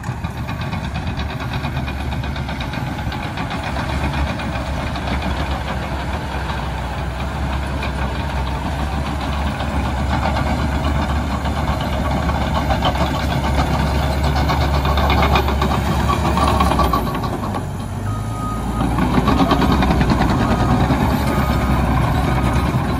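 Cat D6K bulldozer's diesel engine running under load while grading, steady and loud, with a short dip and change in engine note about three-quarters of the way through. Near the end the machine's backup alarm beeps repeatedly as it reverses.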